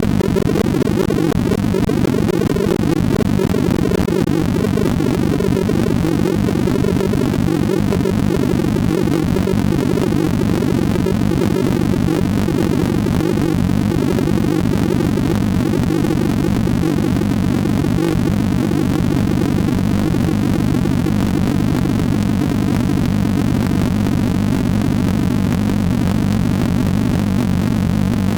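Computer-generated sonification of a sorting algorithm: a dense stream of short synthesized tone pulses, one for each comparison or move, with pitch following the values being sorted and a square-wave sub-oscillator underneath. The pulses run together into a steady, busy electronic wash centred in the low-mid range.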